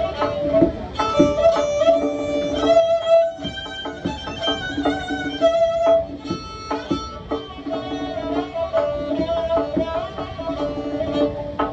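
Persian traditional music played live: a kamancheh, the bowed spike fiddle, plays a melody with vibrato over a plucked string instrument that strikes notes throughout.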